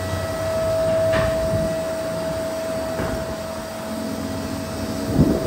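Steady machine hum with one constant tone, with a few light clicks of hand tools being handled and a sharper knock near the end.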